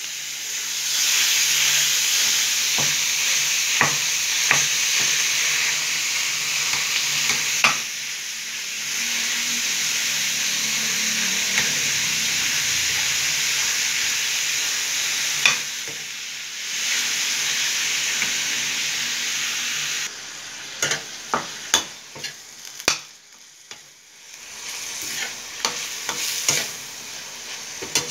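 Ground pork with chopped onion and garlic sizzling in oil in a stainless steel pan, stirred and broken up with a metal spatula. The sizzle is steady for most of the time, then drops about two-thirds through, leaving the sharp clicks and scrapes of the spatula on the pan to stand out.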